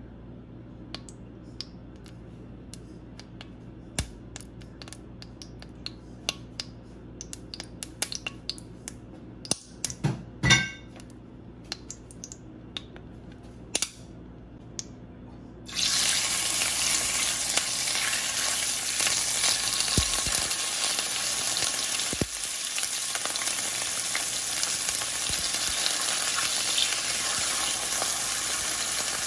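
Cooking oil heating in an enamelled pan, with scattered small ticks and a brief clatter about ten seconds in. About sixteen seconds in, a loud steady sizzle starts suddenly as marinated pork slices go into the hot oil and fry.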